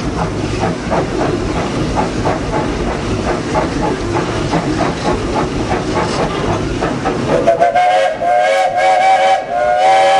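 Small Vulcan steam locomotive working under way, its exhaust chuffing about three times a second. About seven seconds in, its steam whistle blows a long, steady chord, broken briefly near the end.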